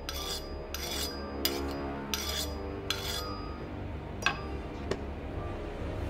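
Steel knife blade scraping in short, ringing metallic strokes, about seven of them, the loudest a little past the middle, over a low music drone.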